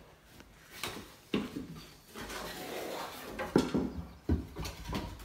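Scattered light knocks and clatters of things being handled, over a low rustle. The loudest knock comes about three and a half seconds in.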